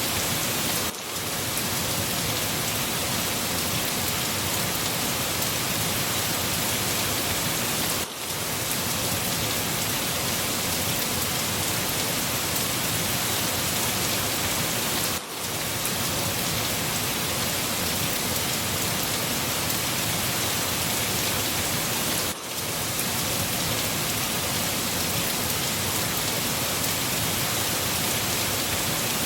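Steady heavy rain falling on a surface, an even hiss without let-up, with a brief dip in level about every seven seconds.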